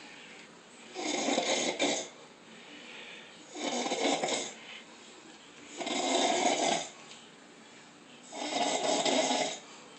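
A woman snoring in a steady rhythm: four loud snores of about a second each, roughly every two and a half seconds, with quieter breathing between.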